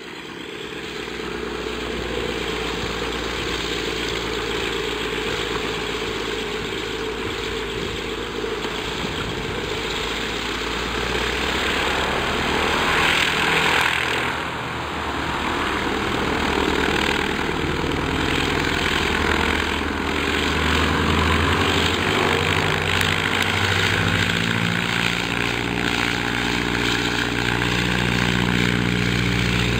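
Radial engine of an open-cockpit biplane running at low power as the plane taxis on grass, a steady propeller drone. It grows louder as the plane comes close, with a brief rush of propeller wash about halfway through.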